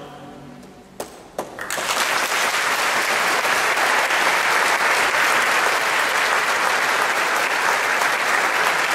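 Audience applauding at the end of a choir's song: the choir's last chord fades out just at the start, a couple of single claps come about a second in, then the clapping swells into steady, full applause.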